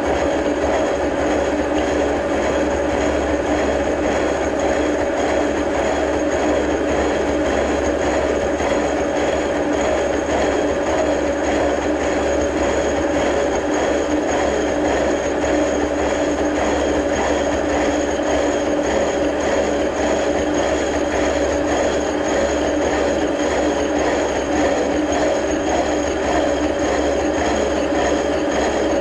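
Horizontal milling machine taking a cut with a reground horizontal mill cutter on the arbor: a steady running hum with a constant tone under the clatter of the teeth biting the work. The cutter is being tried out after regrinding and is still not completely round.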